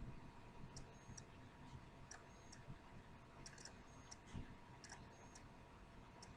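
Near silence with faint, sharp clicks recurring roughly every second or so, over a faint steady hum.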